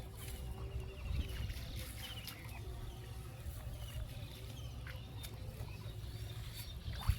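A bird calling again and again in short, falling chirps, over a steady low rumble and a few faint clicks.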